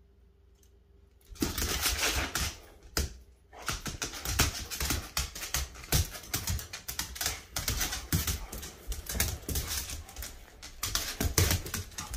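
Dogs' claws clicking and scrabbling on a hardwood floor as they chase a laser dot: a fast, irregular patter of clicks that starts about a second and a half in, with a brief pause about two seconds later.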